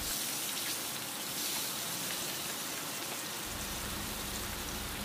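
Chicken leg quarters deep-frying in hot oil in a frying pan: a steady sizzle.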